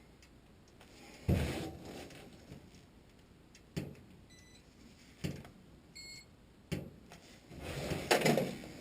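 Handling noises at an open furnace cabinet: a thump, a few sharp clicks and a rustle near the end, with two short, faint electronic beeps in between.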